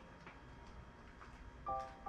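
Background music: a brief quiet lull with a few faint ticks, then repeating bell-like notes come back in near the end.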